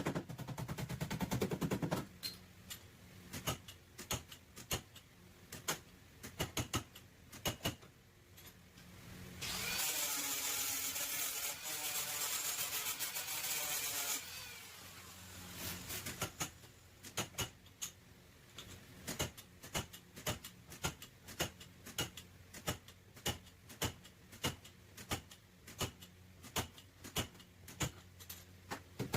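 Metal bodywork on a car's damaged rear panel. A rattling tool runs briefly at the start, a power tool whines for about five seconds midway, and the second half is steady hammer strikes on sheet metal, about two a second.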